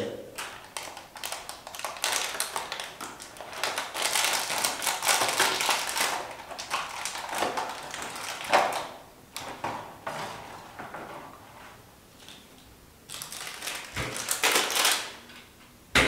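A thin plastic wrapper and a plastic water bottle crinkling and crackling as they are handled and pressed together while the wrapper is taped over the bottle's cut edge. The crackling comes in stretches of a few seconds, with a quieter pause about two thirds of the way through.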